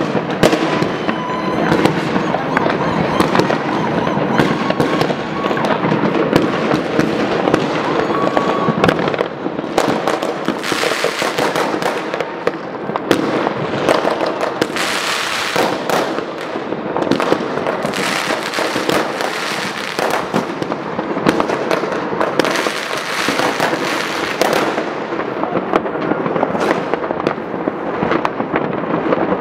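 Many fireworks and firecrackers going off at once: a continuous crackle of overlapping bangs with no pause.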